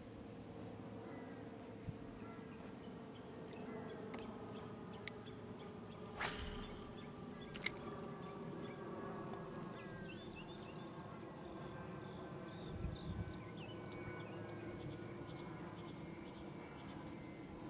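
Lakeside ambience: a steady buzzing drone with short bird-like chirps scattered through it. A brief rustling noise comes about six seconds in, and a sharp click comes shortly after.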